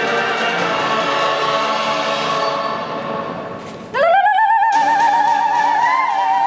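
Oriental dance music accompanying belly dancing, fading out about three seconds in; then a solo singing voice comes in loud on one long high note with a wide vibrato.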